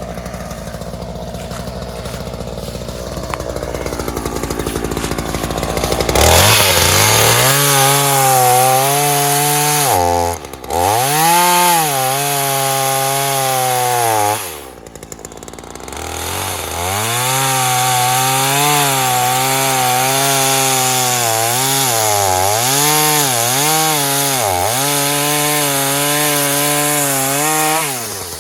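Ryobi two-stroke gas chainsaw idling, then throttled up about six seconds in and cutting through a small tree trunk, its pitch sagging and recovering as the chain loads in the wood. The throttle drops briefly twice, near ten and fifteen seconds, before the cut resumes, and the saw comes off the throttle near the end.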